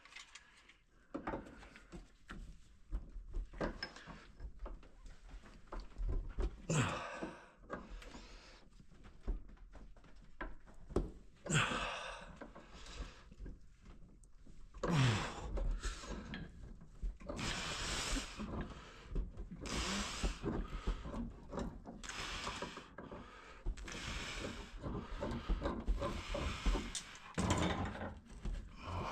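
Hand work on gas pipe inside a wall: an irregular string of scrapes, knocks and rasps as a wrench and pipe fittings are handled, with a couple of brief falling squeaks.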